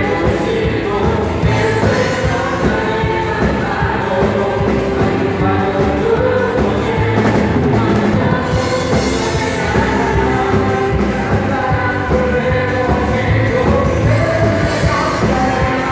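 Live worship band playing: women singing into microphones over drum kit, keyboard and electric guitars, amplified through a PA system.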